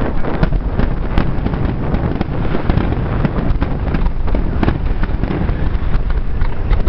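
Aerial firework shells bursting in a dense barrage: many sharp bangs in quick succession over a constant din.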